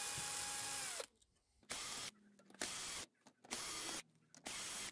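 Cordless drill-driver backing out the mounting screws of a VCR's tape carriage: one steady run of the motor that stops about a second in, then four short bursts of about half a second each.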